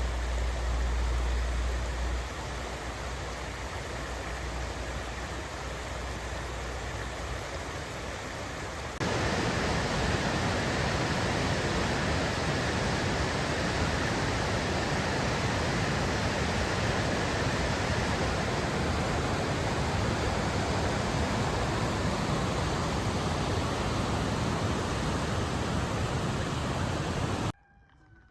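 Brook swollen with snowmelt, rushing water making a steady hiss. It jumps louder about a third of the way in and cuts off suddenly near the end.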